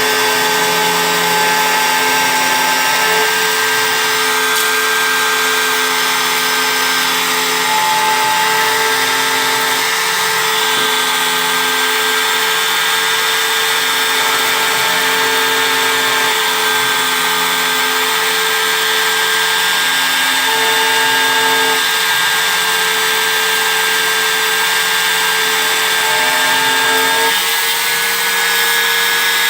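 CNC engraving machine running: a steady high whine, with lower motor tones that switch on and off every second or two as the cutting head moves.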